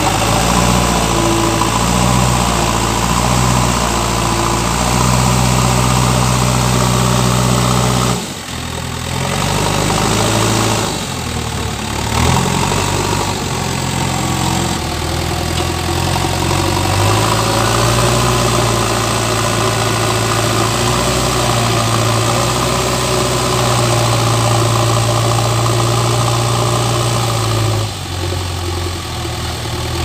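Diesel engine of a JCB backhoe loader running steadily while it works its front loader bucket through sand. The engine note drops briefly a few times.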